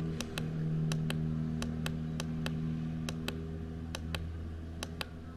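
Buttons on a Flysight Black Pearl FPV monitor clicking, a few presses a second, as it is cycled through its receiver modes. A steady low electrical hum runs underneath.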